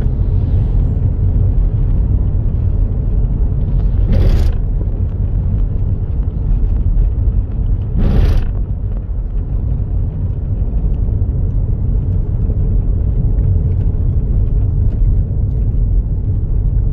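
Steady low road rumble of a car in motion, heard from inside the vehicle. Two brief whooshing swells come about four seconds in and again about four seconds later.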